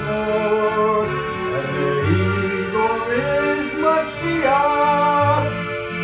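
Roland digital piano accordion playing a slow melody in long held notes over changing bass notes.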